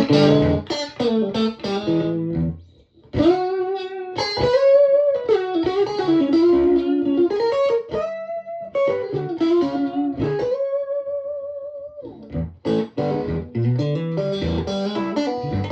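Electric guitar played through a 2004 Victoria 35310 tweed Bandmaster-style amp with three Jensen P10R 10-inch speakers, its bass and treble turned up to 10. Chords at first, then a single-note lead line with string bends ending in a long held note, then chords again.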